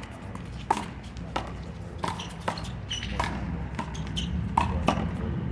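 Rubber handball smacked by players' hands and hitting the wall and pavement during a one-wall handball rally: a string of sharp smacks about twice a second.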